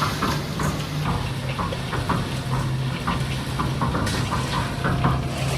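A steady low machine hum with irregular scrapes and knocks over it, a few each second.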